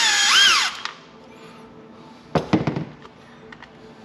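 Cordless electric screwdriver backing a Phillips screw out of a plastic dash housing, its motor whine rising and falling in pitch twice in the first second. A short run of light clicks and knocks follows about two and a half seconds in.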